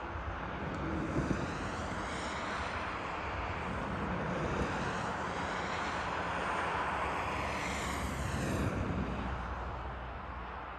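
Vehicles passing on the road: tyre and engine noise that swells, peaks a little after the middle and fades toward the end.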